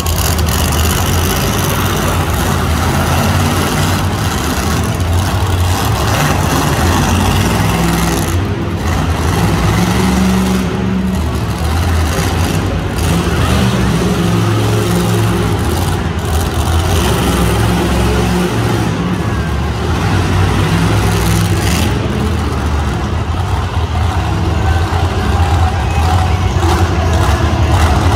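Monster truck engine running loud and revving up and down repeatedly as the truck drives around the dirt track.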